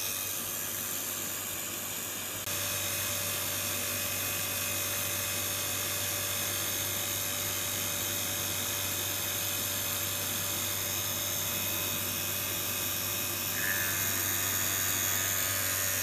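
Electric vacuum pump running with a steady whir, pumping the air out of a chamber; its level steps up slightly about two and a half seconds in and again near the end.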